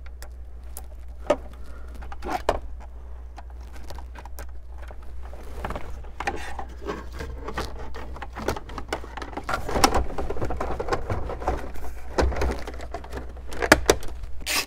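Plastic dash trim pieces being handled and fitted: scattered light clicks, rattles and rustling, with a few sharper plastic clicks.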